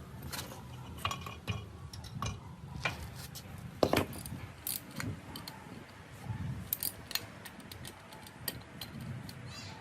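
Small metal parts and hand tools clinking and tapping irregularly as they are handled, with a sharper knock about four seconds in.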